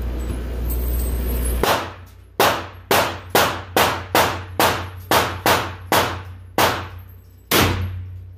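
A rapid string of about a dozen gunshots, mostly two or three a second, each with a short echo. A steady low rumble runs before the first shot, about a second and a half in.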